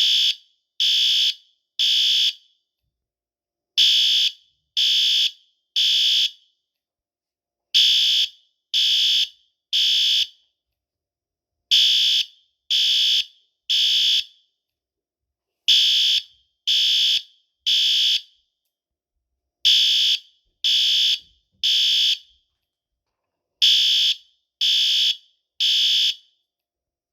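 System Sensor SpectrAlert Advance ceiling-mount horn strobe (PC2R) sounding its horn in the temporal-three evacuation pattern: three loud, high-pitched blasts of about half a second each, then a pause, repeating every four seconds.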